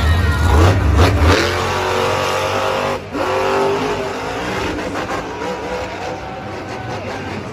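Grave Digger monster truck's supercharged V8 revving hard, its pitch repeatedly rising and falling as the throttle is worked, with a brief break about three seconds in.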